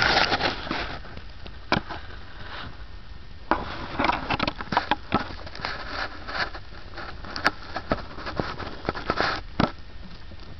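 Kittens and their mother cat moving about, making irregular rustling, scratching and small clicks, with a louder flurry at the start and more clusters in the middle and near the end.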